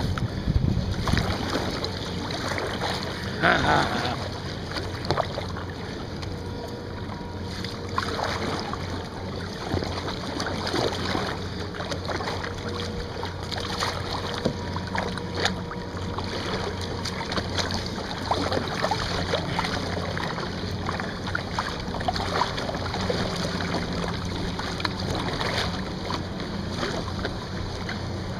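Kayak paddling on a river: irregular paddle strokes splashing and dripping in the water, with wind buffeting the microphone.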